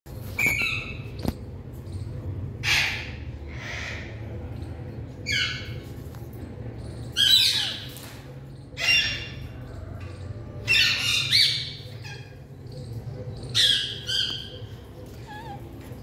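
Indian ringneck parakeets calling: about nine short, harsh calls, one every second or two, over a faint steady low hum.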